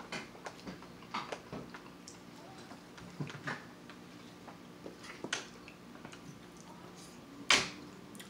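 Eating sounds: scattered small clicks and taps of a plastic fork working food in an aluminium foil takeout tray, with one louder sharp click about seven and a half seconds in. A faint steady hum runs underneath.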